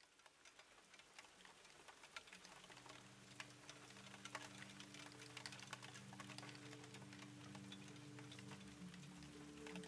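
Quiet music fading in: a crackling, ticking texture from the start, joined about two and a half seconds in by a sustained low chord that grows fuller toward the end.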